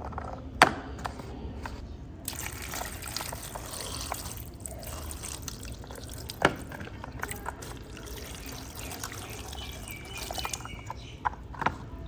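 Water running and trickling over a small toy car as it is washed, a steady hiss that starts about two seconds in and stops near the end. Two sharp clicks cut through it, one about half a second in and one a little after six seconds.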